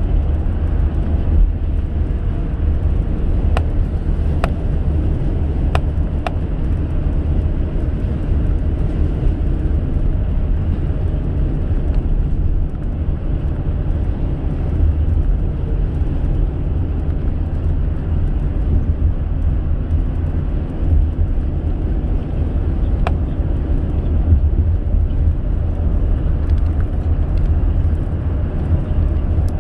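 Steady low rumble of a car driving at road speed, with engine and tyre noise, and a few faint clicks about four to six seconds in.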